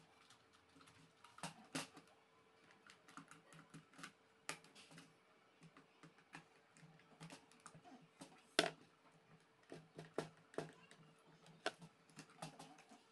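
Faint irregular clicks and taps of a small screwdriver working screws into the plastic handle of an electric flyswatter, with the plastic parts knocking as they are handled. One sharper knock about two-thirds of the way through is the loudest, over a faint steady hum.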